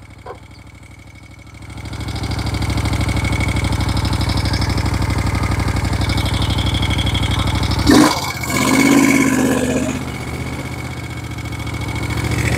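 Cold Moto Guzzi Eldorado transverse V-twin engine, fitted with a big-bore kit of about 1000cc, coming up to a steady run about two seconds in. About eight seconds in there is a sudden loud thump, and the engine sound swells and then eases.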